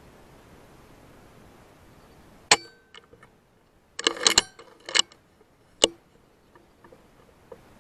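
FX M3 PCP air rifle shooting in quick succession: a string of sharp cracks and metallic clicks about a second apart, starting about two and a half seconds in, the first the loudest, with a quick cluster near the middle.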